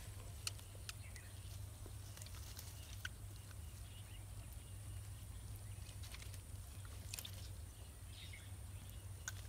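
Faint scattered clicks and rustles of hands picking small fish out of a mesh cast net spread on grass, over a steady low rumble.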